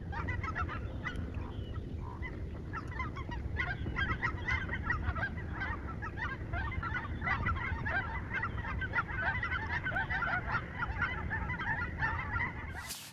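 A large flock of geese flying overhead, many birds honking at once in a steady, overlapping chorus over a low rumble.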